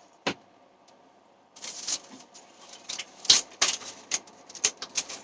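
Irregular sharp clicks and light clatter of small items being handled, starting about a second and a half in after a single click near the start.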